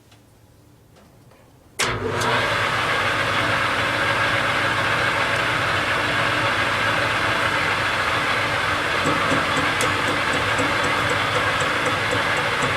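Metal lathe switching on suddenly about two seconds in and running steadily with a motor hum and a broad whirring noise. A faint regular ticking joins in during the second half.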